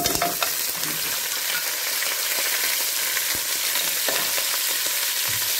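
Goat trotters sizzling in hot edible oil in a pressure cooker as they are stirred with a wooden spatula: a steady frying hiss, with a few light knocks now and then.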